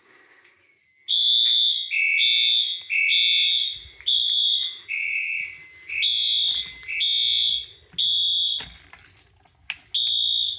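Fire alarm horns sounding in alarm, set off by pulling a Notifier pull station on a test fire alarm panel. Two electronic tones, one high and one lower, sound in roughly one-second beeps in an uneven pattern. They start about a second in.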